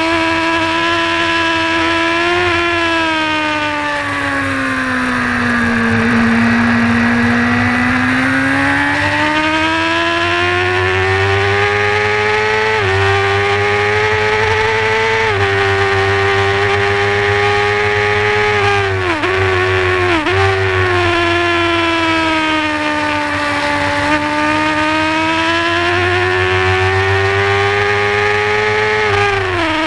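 Onboard sound of a Honda supersport race motorcycle's engine held at high revs on track. The pitch sags as it slows for corners and climbs again as it accelerates, with a few quick gear changes, mostly around twenty seconds in. A steady rush of wind sits over the engine.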